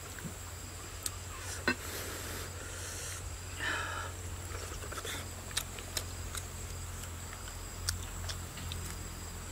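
Eating noises: chewing and lip-smacking, with scattered small clicks of a knife and fingers handling grilled fish, over a steady high-pitched whine.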